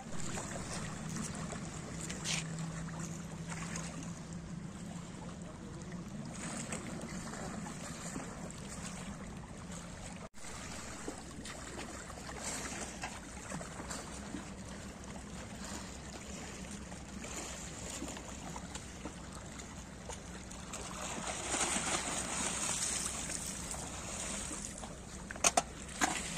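Seawater lapping and splashing at a rocky seawall as snorkellers swim and kick their fins, over a low steady hum. The splashing grows louder for a few seconds about four-fifths of the way through, and a few sharp clicks follow near the end.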